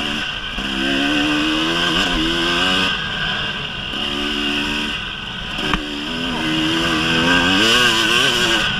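KTM 300 EXC two-stroke single-cylinder dirt bike engine running under load on a gravel climb, its pitch rising and falling again and again with the throttle. A single sharp knock sounds a little after halfway.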